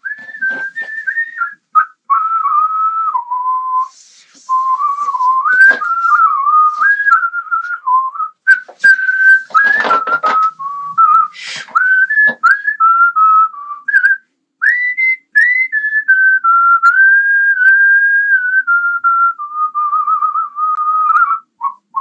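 A person whistling a wandering tune for many seconds, with short breaks, the pitch stepping and gliding up and down with a slight wobble. A cardboard and plastic camera box crackles as it is handled, most around ten seconds in.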